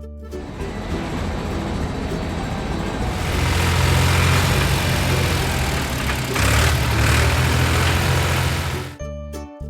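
Heavy vehicle engine sound effect running steadily, with a deep rumble, growing louder about three seconds in and cutting off suddenly near the end as music comes back.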